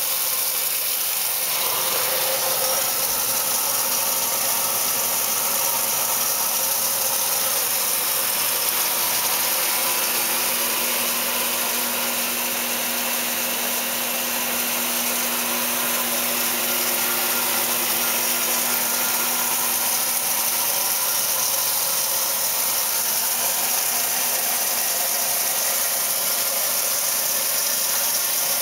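1968 Kenmore 900 series top-loading washer running with a steady mechanical hum under an even hiss.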